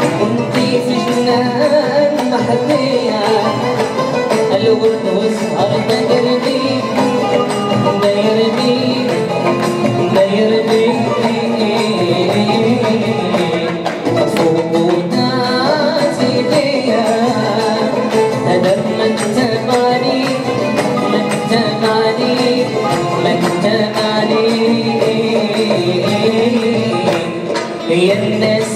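Live Moroccan Arabic song: a male voice singing over a small ensemble of violin, oud, banjo, acoustic guitar and darbuka, playing on without a break.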